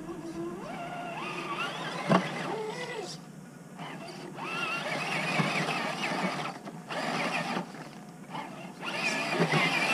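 A 1/10-scale RC rock crawler's electric motor and drivetrain whining in bursts, the pitch rising and falling with the throttle as it crawls over the mud. A sharp knock comes about two seconds in.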